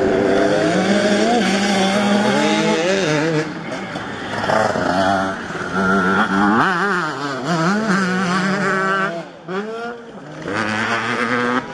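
Two-stroke motocross bikes revving hard, engine pitch climbing and dropping with throttle and gear changes, several bikes overlapping. The sound dips briefly near the end, then picks up again.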